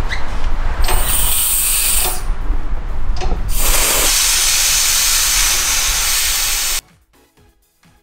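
Gas hissing through a car air-conditioning manifold gauge set as its valve is opened: two loud bursts of hiss, the second longer, over a steady low hum. Everything cuts off suddenly near the end, leaving faint music.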